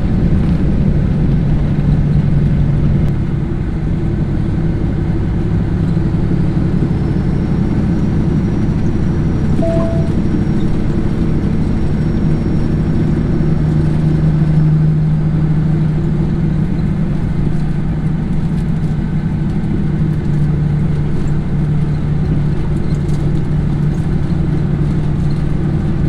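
Caterpillar C-15 Acert diesel of a Peterbilt 379 running steadily while the truck drives down the road, heard inside the cab as a constant low engine hum mixed with road noise.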